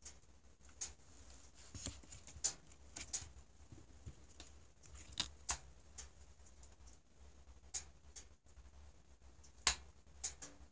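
Faint, irregular light clicks and taps of ceramic knives and their plastic handles being handled in a cardboard presentation box, over a low steady hum. A sharper click comes about a second before the end.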